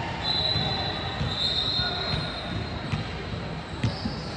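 Basketball game sounds on a gym court: a high, steady squeal lasting about two seconds near the start, over the thud of a ball being dribbled, with a sharper bounce near the end.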